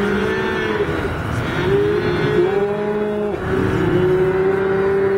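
Calves and cows bawling in a branding pen, several long, rising-and-falling calls overlapping one after another.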